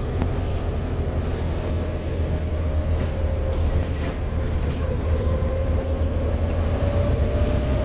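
London double-decker bus VLA129's diesel engine running with a steady deep rumble, and a faint whine that slowly rises in pitch.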